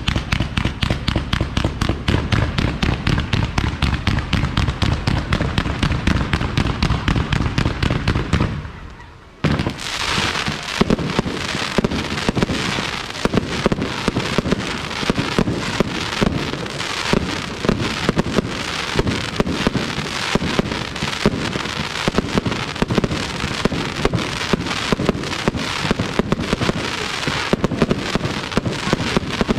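Palmieri e De Candia aerial fireworks display: a rapid, even run of shell bursts at about five bangs a second. The run stops for a moment a little past eight seconds in, then gives way to a denser, continuous barrage of bangs and crackle.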